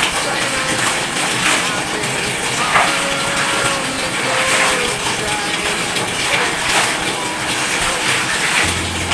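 Wet clothes being hand-scrubbed in a basin of soapy water: repeated swishing, squelching rubs of fabric against fabric, about one stroke a second, over a steady hiss.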